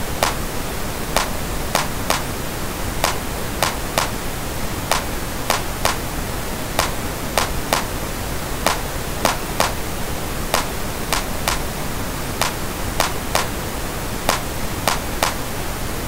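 Steady pink-noise hiss with a bongo sample looping over it, short sharp hits about one and a half to two times a second. A parametric EQ is boosting the bongos' low-mid band to give them more body.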